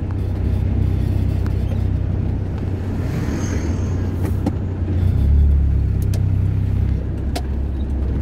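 Low, steady rumble of a car's engine and tyres heard from inside the moving car, growing louder for a moment about five seconds in.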